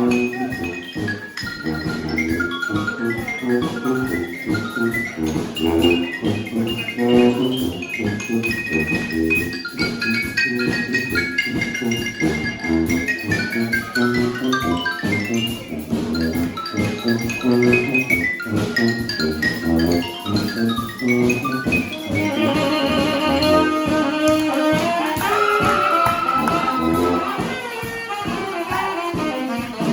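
Brass band playing live: horns over a steady drum beat, the horn lines thickening in the last third, with one long held high note.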